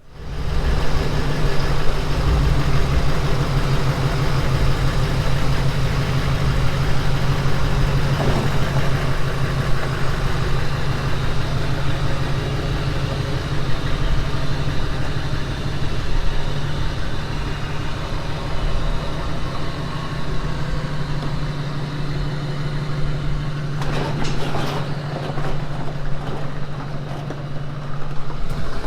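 Freshly installed Duramax LMM 6.6-litre V8 turbodiesel running at a steady idle just after its first start, coming up to speed in the first second. A few short knocks sound over it near the end.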